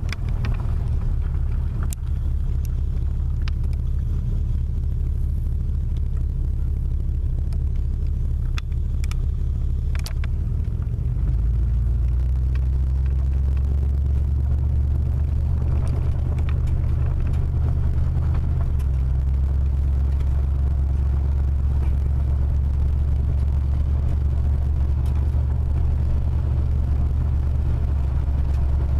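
Car driving on a gravel road, heard from inside the cabin: a steady low rumble of engine and tyres, with a few sharp clicks in the first ten seconds. The rumble deepens and gets a little louder about eleven seconds in.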